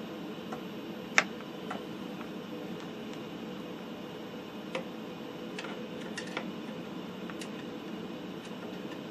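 Light clicks and taps of a tool and test leads being handled on the television chassis, one sharp click about a second in and a few smaller ones later, over a steady background hum. The clicks come from adjusting the set's horizontal drive control and reconnecting the meter.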